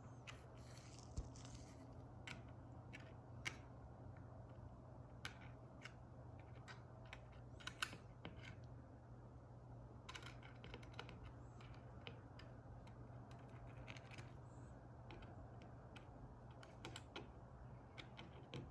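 Faint, irregular light clicks and taps from handling a vintage all-metal sewing machine while oiling its underside, over a steady low hum.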